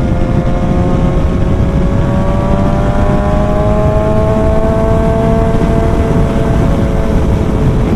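BMW S1000 XR's inline-four engine pulling steadily under way, its pitch rising slowly for about five seconds and then holding level, under heavy wind noise on the microphone.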